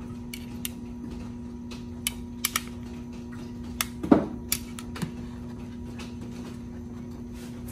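A spoon clicking and tapping against a cooking pot and bowl as shrimp paste is spooned into soup: about seven light clicks, the loudest a ringing clink a little past halfway. A steady low hum runs underneath.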